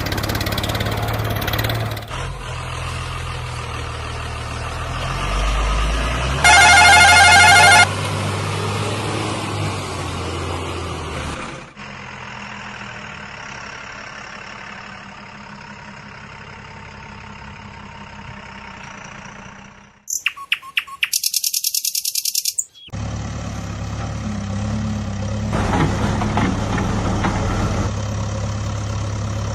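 Heavy diesel engines of earthmoving vehicles idling and running, across several abruptly cut clips. A loud vehicle horn sounds for about a second and a half some six seconds in.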